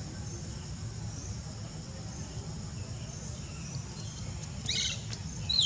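Steady, high-pitched insect chorus over a low rumble. Near the end comes a short chirp, then a sharp squeal that falls quickly in pitch.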